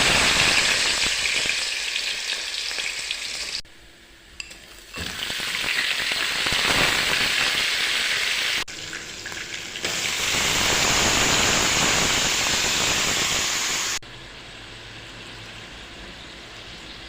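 Food sizzling as it fries in hot oil in a pan: a loud, dense sizzle that cuts off sharply and comes back several times, then drops to a much quieter steady hiss for the last few seconds.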